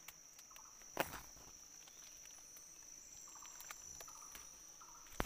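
Steady, high-pitched insect drone in the undergrowth, with a single sharp click about a second in and a few faint short calls in the background.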